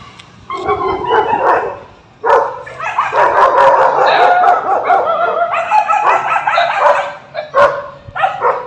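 A puppy barking and howling: a short burst about half a second in, then several seconds of continuous high yelping and howling, ending in a few short barks.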